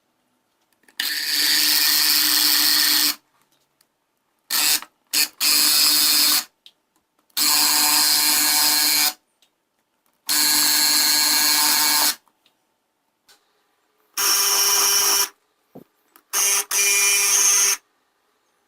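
Small electric juicer motor switched on and off in about six short runs of one to two seconds each as mandarins are juiced, each run starting and stopping abruptly. The last two runs are a little higher in pitch.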